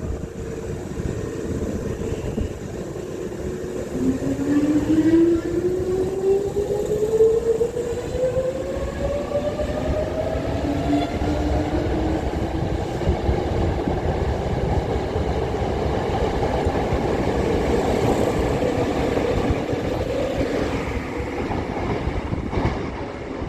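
Hankyu electric train pulling away, its motors giving a whine that rises steadily in pitch as it picks up speed, over the rumble of the wheels on the rails. The whine starts about four seconds in.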